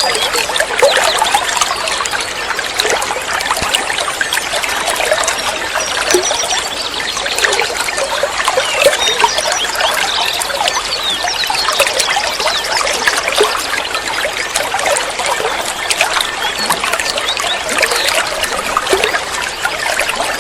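Water trickling and babbling steadily, with many short, quick high chirps scattered through it.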